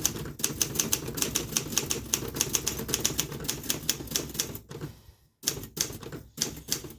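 A 1968 Olympia SG 3 manual standard typewriter being typed on at a brisk, even pace, about six keystrokes a second. There is a brief pause about five seconds in, then a few more strokes.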